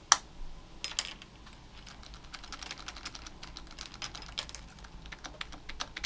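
Key being turned and wiggled in the ignition switch of a Zontes Tiger 125cc motorcycle: one sharp click, then a run of small, quick clicks and rattles. The switch is loose and makes poor contact, so it takes wiggling to switch the bike on.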